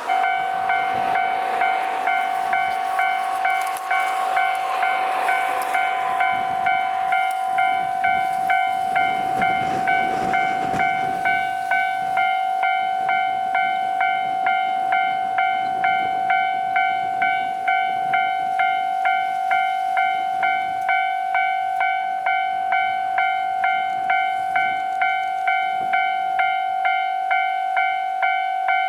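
A Japanese level crossing alarm rings steadily, its bell striking about twice a second. Under it, a KiHa 261 series diesel express train passes and runs off, its noise fading out within roughly the first ten seconds.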